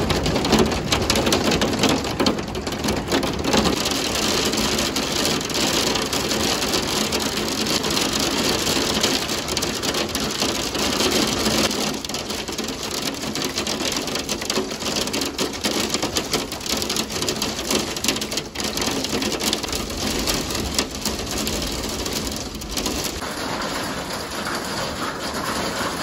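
Hailstorm with heavy rain pelting a house's front window and the yard: a dense, steady rattle of countless small impacts.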